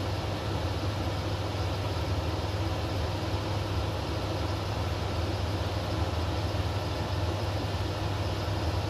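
Steady drone of a Zenith CH-650 light aircraft's engine and propeller, heard inside the cabin in flight at reduced throttle, with an unchanging deep hum.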